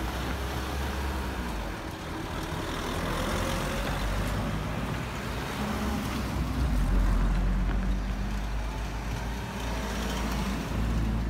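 Road vehicles driving over a railway level crossing one after another, a steady mix of engine and tyre noise that swells to its loudest about seven seconds in.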